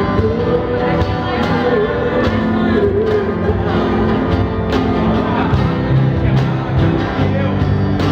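A live acoustic pop-rock band playing: acoustic guitar with a sung melody over steady cajón beats.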